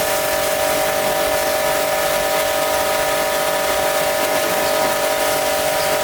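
Pressure washer running steadily: a constant motor whine over the hiss of the water jet.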